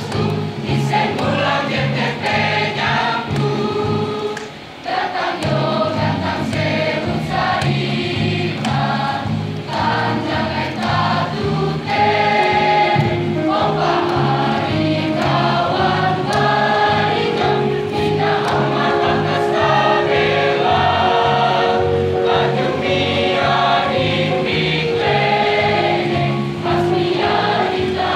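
A mixed-voice school choir singing an Indonesian song into microphones, over an accompaniment with a steady, bouncing bass line. The sound dips briefly about five seconds in.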